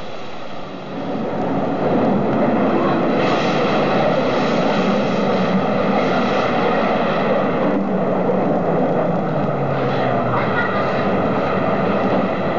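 S-Bahn train running, a steady dense rumble with a low hum that swells up about a second in and then holds.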